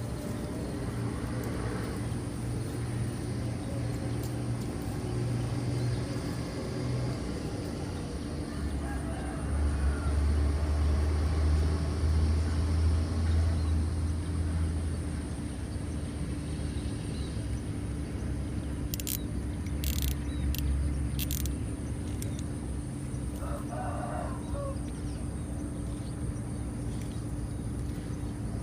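Steady low outdoor rumble that swells for several seconds in the middle, with a rooster crowing once near the end.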